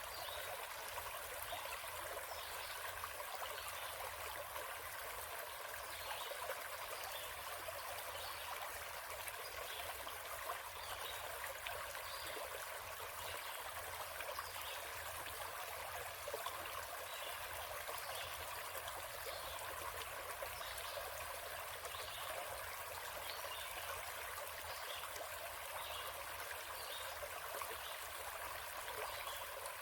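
Forest stream flowing steadily, an even rush of running water.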